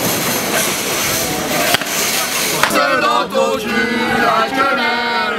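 Loud street-clash noise: a steady hiss of crowd and smoke broken by two sharp bangs. About two and a half seconds in, a cut to a small group of people singing.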